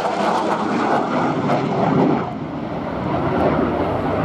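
Jet noise from a Lockheed F-35B Lightning II's single F135 turbofan as the fighter makes a high-speed pass: a loud, even rushing roar that drops a little about two seconds in.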